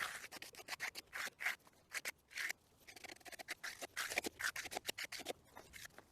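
Steel trowel scraping over wet concrete in quick, irregular short strokes during the final smoothing of the slab.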